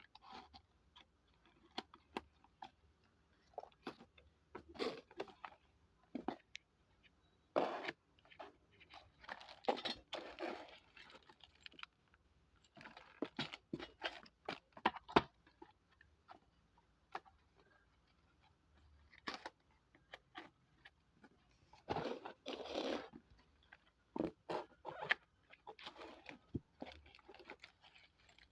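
Parts of a thin-metal TV wall bracket kit and their packaging being handled: irregular clicks, knocks and rustles, with longer rustling stretches about eight seconds in and again near twenty-two seconds.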